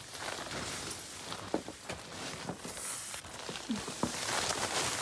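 Footsteps shuffling across the grey floor of a Coleman Skydome tent, the fabric rustling and crinkling underfoot.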